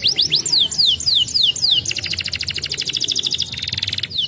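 Domestic canary singing: a series of high whistled notes, each falling in pitch, then about two seconds in a switch to a very fast rattling trill that runs until just before the end, where the falling notes start again.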